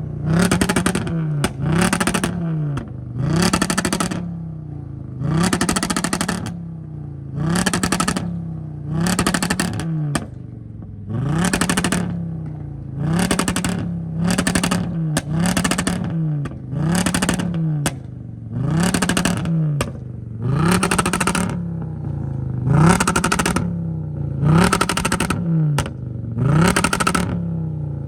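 A 2012 Volkswagen Jetta SE's five-cylinder engine is being revved in short blips, about one every one and a half to two seconds, each rising and falling in pitch. The burble tune makes the exhaust crackle during each blip, and sharp pops follow as the revs drop.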